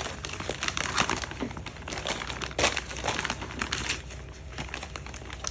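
Gift wrapping crinkling and crumpling as a present is pulled open by hand, in quick irregular crackles with louder rips about a second in and again midway.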